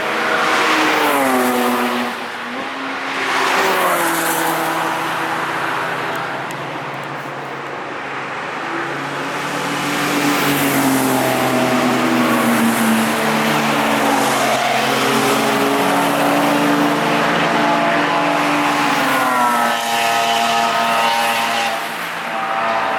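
Cars passing one after another at speed on a race track, engines running hard. Each engine's pitch drops as it goes by, and near the end several engines can be heard at once.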